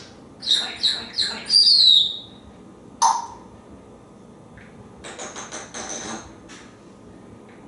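African grey parrot making wordless calls: a few short chirps and a falling whistle, a sharp call about three seconds in, then a quick run of clicking chatter.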